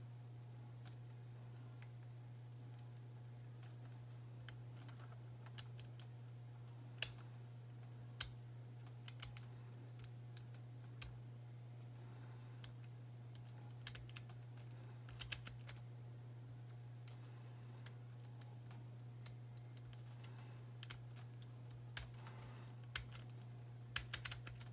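Faint, irregular metallic clicks of a lock pick working the pins inside a Burg Wächter padlock's keyway, a few scattered clicks at a time and coming quicker near the end, over a steady low hum.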